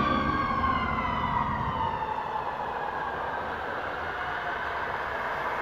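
A fire engine's siren winding down, its pitch falling slowly and steadily over several seconds as it fades, just after a steady air horn chord cuts off at the very start. A low rumble of engine and road noise runs beneath it.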